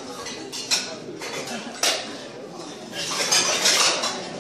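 Crowd commotion in a large hall: voices mixed with sharp clinks and clattering knocks, growing denser and louder for about a second near the end.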